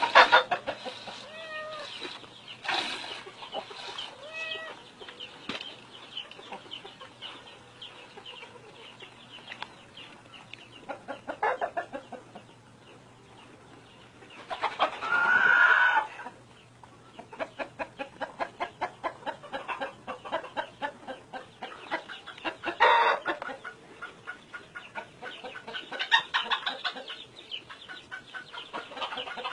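Farmyard chickens clucking, with one longer, louder call about halfway through. In the second half a steady run of short strokes comes at about two to three a second.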